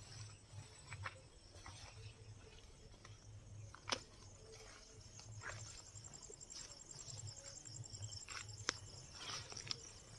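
Quiet footsteps and rustling through grass and brush, over the faint steady high trill of insects. There are sharp clicks at about four seconds and again near nine seconds.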